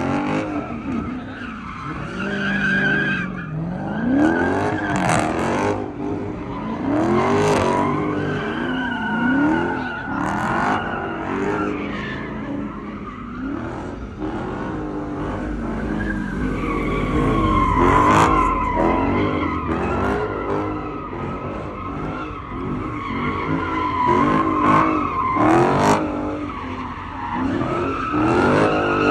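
Cars drifting and doing donuts: engines revving up and falling back again and again, with tires squealing over them, loudest about two-thirds of the way in.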